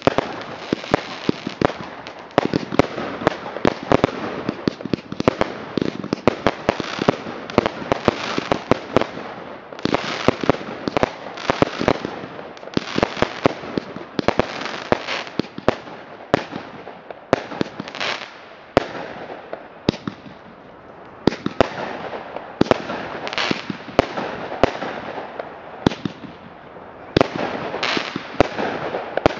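Fireworks display: a dense run of sharp cracks, pops and bangs from bursting aerial shells and glittering stars, several a second. The barrage thins briefly a few times before picking up again.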